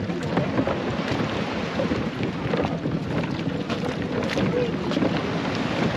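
Boat engine running steadily, with wind buffeting the microphone and people talking in the background.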